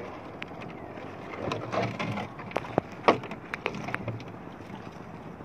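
Wet gill net hauled in over a boat's side, with water dripping and splashing off the mesh and scattered taps and knocks as net and fish land in the hull; one sharper knock about three seconds in.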